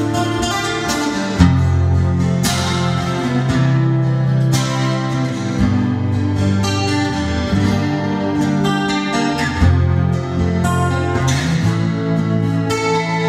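Acoustic guitar played live, strummed chords ringing over changing low notes, with two harder strums standing out, one about a second and a half in and one near ten seconds.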